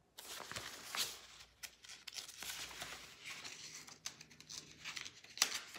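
Rustling and crinkling of a paperback book's pages as it is handled and lowered, with a louder brush of paper near the end.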